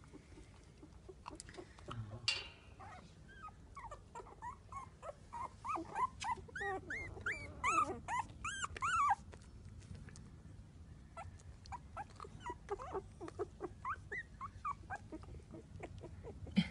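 Twelve-day-old cockapoo puppies squeaking and whimpering: many short, high, arching squeals in quick succession, loudest in a run around the middle, then scattered squeaks. A single sharp knock comes about two seconds in.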